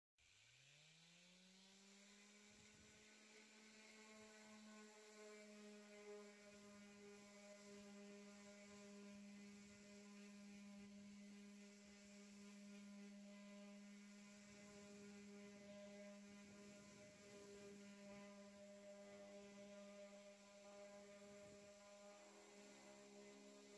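Electric random orbit sander switching on, its motor hum climbing in pitch over about a second and then running steadily while it sands the finish of a wooden case.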